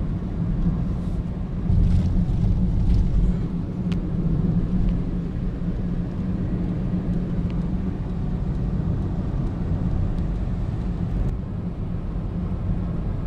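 Steady low rumble of a car's engine and tyres on a paved road, heard inside the moving car's cabin. It swells briefly about two seconds in.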